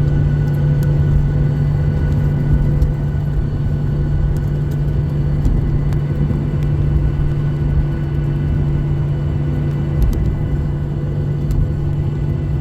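Steady low rumble of an airliner's engines heard from the cabin, with a few steady whining tones above it.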